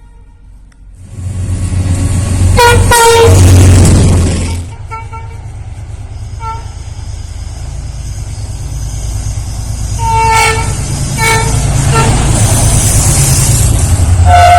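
Locomotive air horns with a passing train's rumble. A loud run of horn blasts comes about two to three seconds in. Later come scattered short toots, three of them close together about ten to twelve seconds in, and a longer horn starts at the very end, its pitch sliding down slightly.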